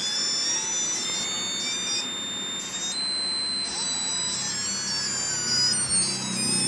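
Electronic beeping and wailing from a Chuwi Corebook's speakers: several high-pitched tones sound at once, some holding steady and others gliding slowly or stepping to a new pitch every second or so. It is an unexplained fault noise that the owner hopes is an audio driver or sound software problem rather than hardware.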